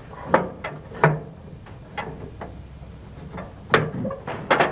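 A few sharp metal clinks and knocks as a riding mower's steering shaft and its gear are pushed and worked by hand, with a cluster of them near the end.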